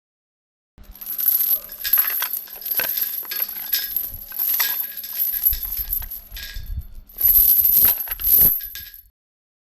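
Metal chain being moved, its links clinking and rattling against each other, loudest near the end before it cuts off suddenly.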